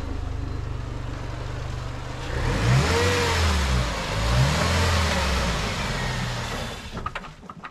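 Mercedes A150 (W169) engine running in Drive. It holds a steady idle, then revs up and down from about two and a half seconds in, driving the jacked-up front wheel so it spins freely with a rising whirr. There is no ESP clicking now that ESP is switched off, and it all dies away near the end.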